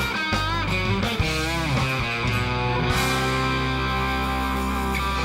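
Live country band playing the end of the song. An electric guitar bends notes over the band, then about three seconds in the band holds a steady sustained chord.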